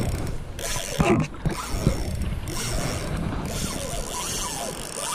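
Spinning reel's drag buzzing as line is pulled off in several runs by a hooked cownose ray.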